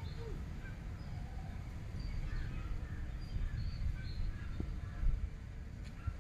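Outdoor ambience: birds calling faintly in short scattered chirps over a steady low rumble.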